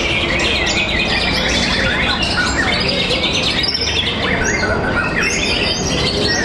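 Caged white-rumped shamas singing in competition: fast, varied whistled phrases that rise and fall, several birds overlapping, over a steady low background hum.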